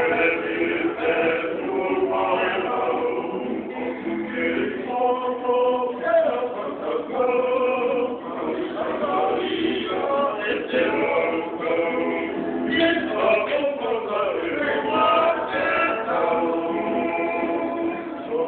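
Group of men singing a Tongan kava-club song in multi-part harmony, with acoustic guitars strumming along.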